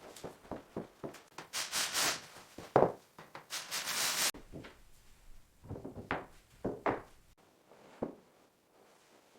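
Scraping and rubbing, with a loud knock about three seconds in and several duller knocks after it: building work, wood being handled and fitted.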